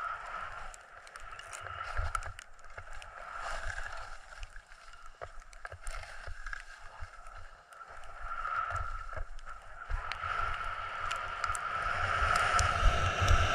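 Skis hissing and scraping over packed snow in a steady downhill run, with scattered short scrapes and clicks from the edges, and wind buffeting the microphone. The rush of snow and wind grows louder over the last few seconds.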